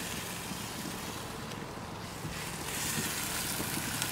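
Barbecue-sauced ribs sizzling on a gas grill over a steady low rumble. The sizzle grows louder, with faint crackles, near the end.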